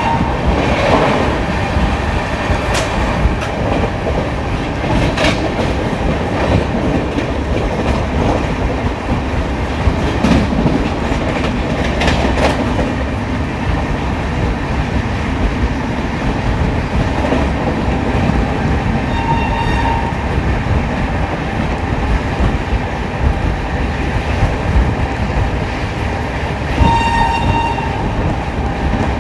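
Indian Railways express train running at speed, its wheels rumbling and clattering on the rails with a few sharp clicks. The electric locomotive's horn sounds in a short blast about two-thirds of the way through and again near the end.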